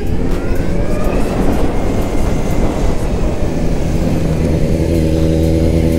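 Riding noise on a Zero FXE electric motorcycle: a rush of wind with the motor's faint whine rising as it accelerates. About four seconds in, a steady low engine-like hum joins in.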